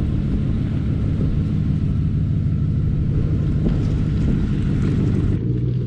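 A vehicle engine running with a steady low drone; near the end the sound changes abruptly to a lower, steadier hum.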